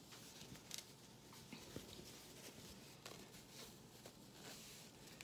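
Faint rustling of a large piece of cross-stitch fabric being rolled and held up by hand, with a few soft, scattered crackles.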